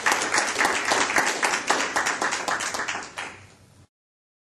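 Audience applauding, many hands clapping together. The clapping thins toward the end and then cuts off suddenly into silence.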